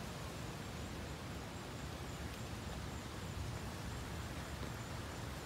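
Steady wind from a thunderstorm's outflow, rumbling on the microphone with an even hiss above it.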